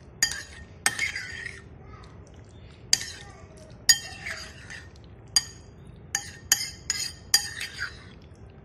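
Metal spoon clinking and scraping against a ceramic bowl while stirring fruit cocktail into cream: about a dozen sharp, ringing clinks at an irregular pace, coming closer together in the second half.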